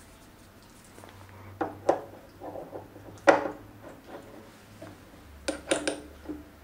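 Metal knocks and clinks as a cast-iron cylinder blank is handled and seated in a mini lathe's three-jaw chuck, with the lathe stopped. There are several sharp clacks, the loudest about three seconds in, and a quick cluster of knocks near the end.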